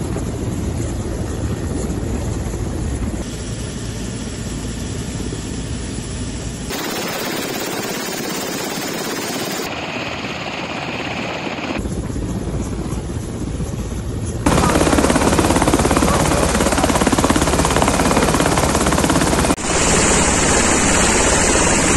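Military transport helicopters running on the ground with rotors turning: a steady engine and rotor noise, heard across several spliced clips, so the sound changes abruptly at each cut and is louder in the last third.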